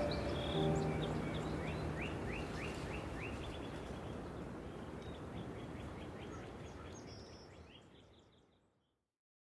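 Birds chirping, short repeated sweeping calls over a steady background hiss, the whole fading out near the end.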